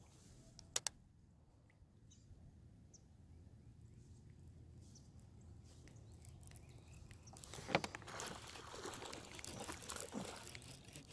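Quiet pond background with a couple of sharp clicks from the fishing reel near the start. About eight seconds in comes a sharp knock, then a few seconds of splashing and jostling as the angler sweeps the rod up hard from the kayak, a hookset on a strike.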